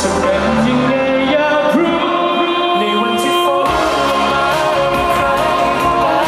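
A male singer performing a song live over instrumental backing, holding long notes with slides in pitch between them.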